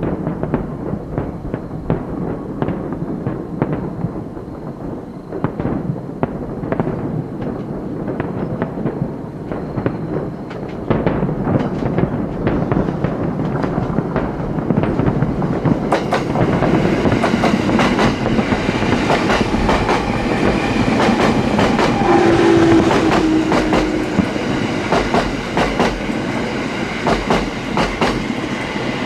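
A JR Narita Line electric train running past, its wheels clattering over rail joints in a dense run of clicks. It grows louder about halfway through as it comes closer.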